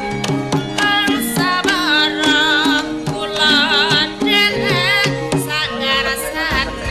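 Javanese traditional gamelan-style music: a sinden's high, wavering sung melody over hand-drum strokes and a steady pattern of repeated low notes.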